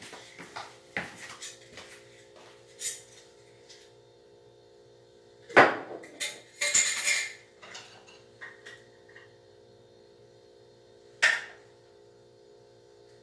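Kitchenware being handled: utensils and dishes knocking against each other in scattered short knocks. There is a sharp knock about five and a half seconds in, followed by a brief scraping rustle, and another knock near the end.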